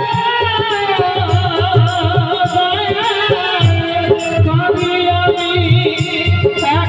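Bengali Baul folk song performed live: a man's amplified singing voice over an electronic keyboard, with a steady beat of low drum strokes and a shaker-like rattle.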